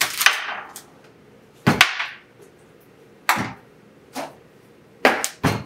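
Containers being set down one after another on a kitchen countertop: about six sharp knocks and clunks, spaced a second or so apart, two in quick succession near the end.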